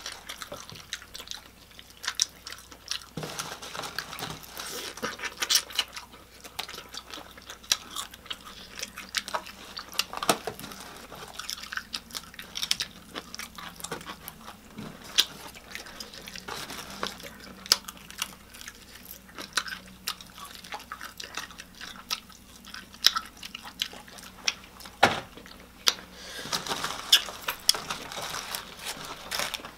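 Close-miked chewing and biting of fried chicken: wet mouth smacks and sharp little clicks at an uneven pace. A paper food box rustles near the end.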